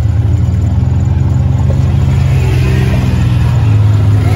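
Off-road vehicle engines running at low speed, a steady low hum that rises slightly in pitch about halfway through.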